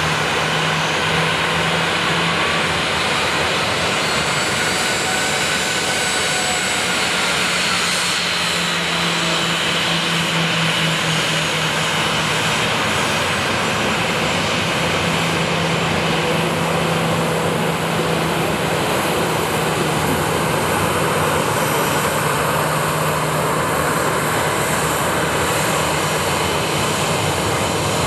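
Boeing 737-800's CFM56-7B jet engines running at taxi power as the airliner taxis. The engine noise is steady, with a low hum under a higher whine.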